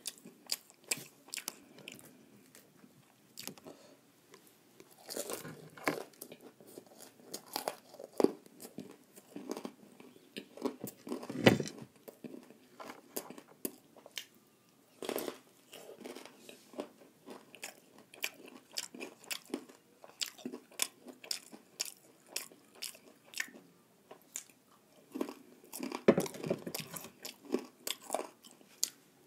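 Close-miked chewing of a crunchy deep-fried snack: irregular wet mouth clicks and crunches, with a loud crunching bite about 11 seconds in and another burst of crunching near the end.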